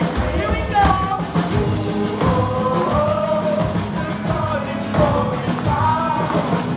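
A live band playing: a man singing lead with two women singing along, over strummed acoustic guitar and a drum kit, with a regular drum accent about every second and a half.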